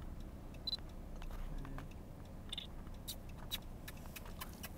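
Low steady rumble of a stationary car with its engine running, heard from inside, with scattered small clicks and taps from the phone being handled. Two brief high chirps come about a second in and again near the middle.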